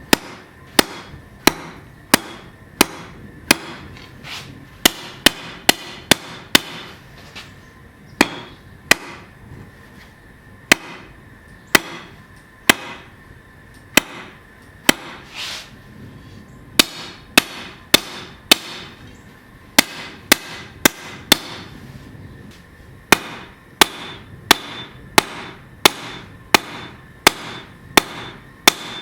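Hand hammer blows on hot 15n20 high-carbon steel on an anvil, forging a knife blade: sharp ringing strikes in irregular runs of about one or two a second, with short pauses between runs.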